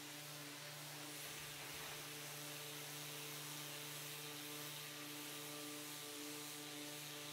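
Random orbital sander with a dust-extraction hose running steadily over a cherry tabletop during its final 240-grit sanding, giving an even, faint motor hum with a hiss.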